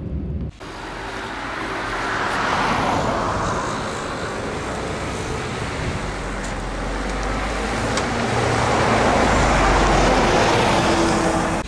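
Three-axle intercity coach driving past close by: engine rumble and tyre noise build as it approaches and are loudest about nine to ten seconds in as it passes, over general traffic noise that also swells briefly about two seconds in.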